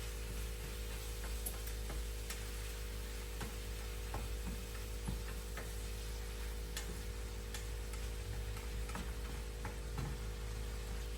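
Faint, irregular clicks and taps of kitchen utensils and cookware, spaced a second or so apart, over a steady hum.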